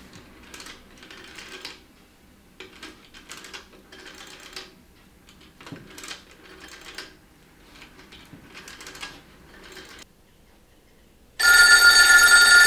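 A rotary telephone dial being turned and running back, clicking, for about six digits in turn. About a second and a half before the end, a telephone bell starts ringing loudly: the called phone ringing.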